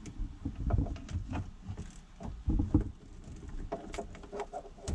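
Hands handling wiring and plastic cable parts: irregular small clicks, taps and scratchy rustles that stop abruptly near the end.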